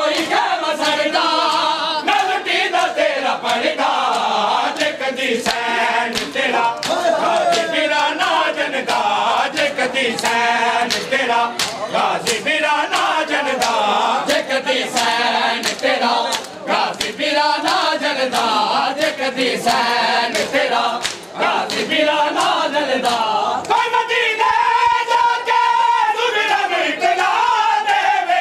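Crowd of men chanting a Punjabi noha refrain in unison, with the sharp slaps of hands beating on chests (matam) in a steady rhythm. Near the end one voice holds a long note above the chant.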